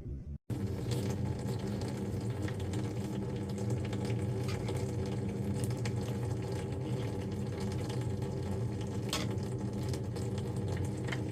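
Water running from a hose into a drain jetter's water tank, a steady splashing fill, with a steady low hum under it.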